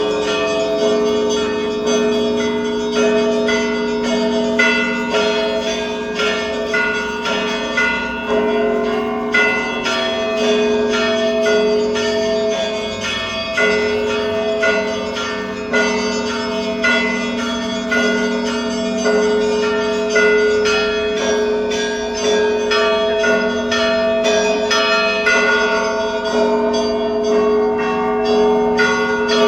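Russian Orthodox monastery bells rung together for the morning service. Several small bells are struck in quick succession over the steady ringing of the larger bells, without a break.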